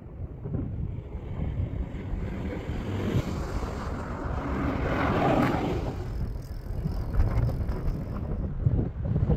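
Wind buffeting the microphone: a steady low rumbling noise that swells louder about halfway through.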